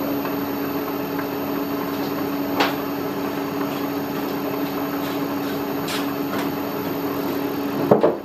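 Milling machine running with a four-flute carbide end mill cutting slowly into hard steel: a steady hum with a few faint brief squeals, and a short louder sound just before the end.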